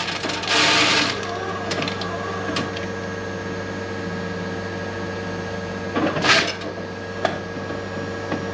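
Steady machinery hum with several fixed tones from a running corn grain dryer, broken by a short rushing noise just after the start, a few sharp clicks, and a louder rustle about six seconds in.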